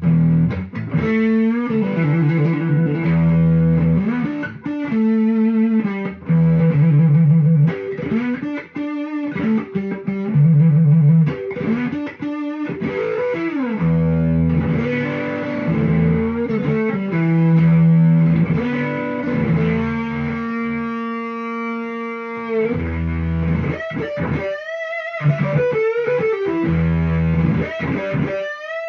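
Stratocaster electric guitar played through a rebuilt Fuzz Face fuzz pedal into a 1965 Kent amplifier: a riff with held notes, string bends and vibrato, broken by short pauses near the end.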